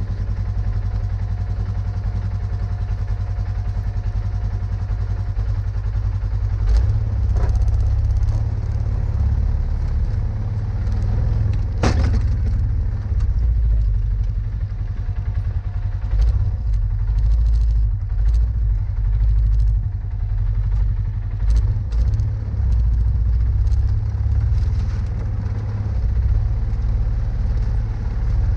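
Polaris Sportsman 570 ATV's single-cylinder engine running, its loudness rising and falling with the throttle as the ATV pushes a steel plow blade through snow. A few sharp knocks come through, the loudest about twelve seconds in.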